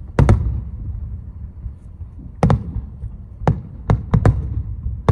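Aerial firework shells bursting: about seven sharp bangs at uneven gaps, a quick pair just after the start and a cluster near the end, over a steady low rumble.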